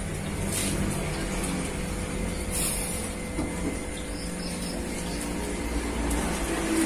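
Submersible aquarium pump running with a steady low hum while water drains out through its hose, with a couple of short hissing bursts.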